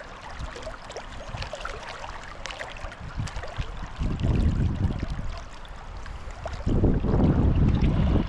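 Shallow river water running steadily, with small splashes and clicks, while wind buffets the microphone in two loud low gusts, one about halfway through and a longer one near the end.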